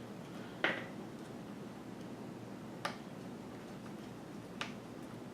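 Three small, sharp clicks about two seconds apart from small screws and a screwdriver being worked into a laptop's display assembly.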